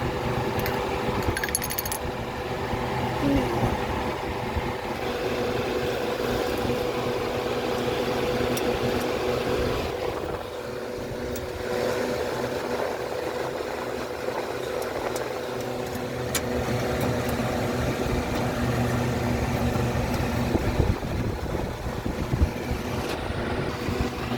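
Steady hum of running machinery, with a few light clicks.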